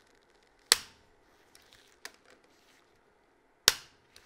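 Click-type torque wrench breaking over twice, two sharp clicks about three seconds apart, signalling that the banjo bolt has reached its set torque of 15 newton-metres.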